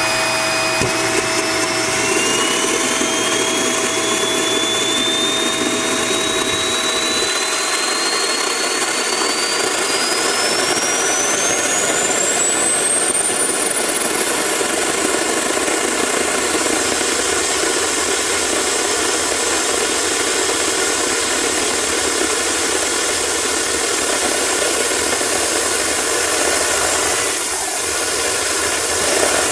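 Homemade turbocharger gas turbine jet engine running loudly with a rushing noise. Its turbine whine climbs steadily in pitch over about fifteen seconds as the engine spools up, then holds high and steady.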